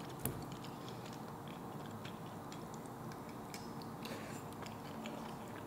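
Quiet chewing of a spoonful of soft egg and mushrooms, with one light click about a quarter of a second in and a few faint ticks over a low room hum.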